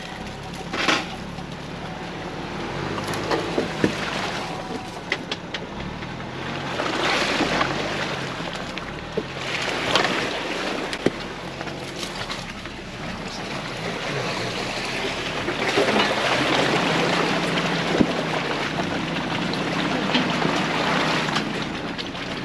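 Ford Bronco driving on a muddy dirt trail: engine and tyre noise that swells and falls, with scattered sharp clicks and knocks.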